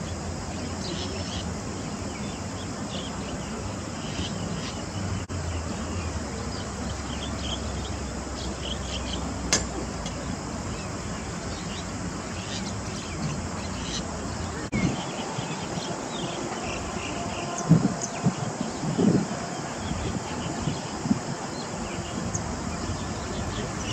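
Steady outdoor background hiss with faint, short high chirps scattered through it. A few louder low thumps come in the last third.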